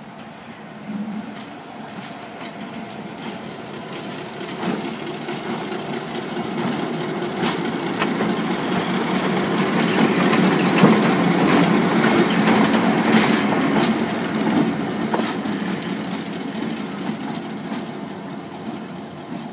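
Victorian Railways Y-class diesel shunting locomotive Y133 running slowly past. Its engine grows louder as it nears, is loudest about halfway through, then fades, with the wheels clicking over the rail joints and points.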